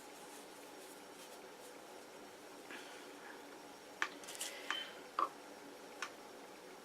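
Faint steady room hum, then a few small clicks and light rustles from about four seconds in, as of paper mache materials being handled.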